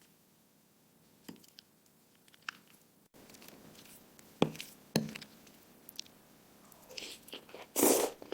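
Close-miked eating sounds of creamy macaroni and cheese: soft, wet chewing and mouth noises with scattered clicks. Two sharper clicks come about four and a half and five seconds in, and a louder noisy burst comes near the end.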